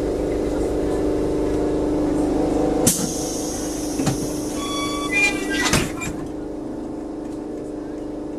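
Lisbon tram standing still, heard from on board: a steady hum, with a sharp click about three seconds in, then a hiss of air and a few short tones and clunks over the next three seconds.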